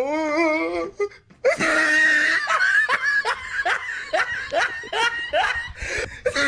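A person laughing hard in a rhythmic string of ha-ha bursts, about three a second, starting about a second and a half in. It follows a brief wavering, high-pitched vocal cry at the very start.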